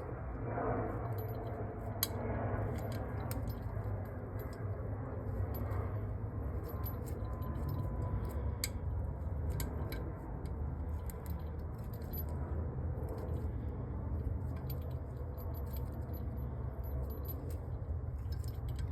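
Small metal clicks and clinks of carburettor parts being handled while a screw is worked back in by hand, over a steady low hum.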